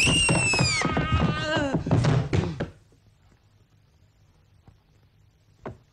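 A person tumbling down wooden stairs: a run of heavy thumps and bumps for about the first two and a half seconds, under a drawn-out cry that falls in pitch and then holds.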